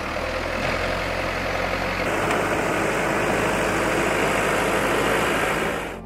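Backhoe loader's diesel engine running steadily while it works a road cut, a dense, even noise with a low hum underneath that cuts off near the end.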